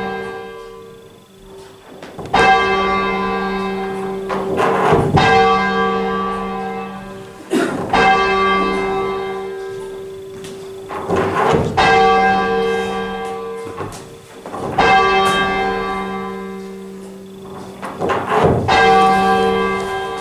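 Church tenor bell, 11 cwt, note G, rung full circle from the ringing room: about six strokes a few seconds apart, each hum dying away before the next.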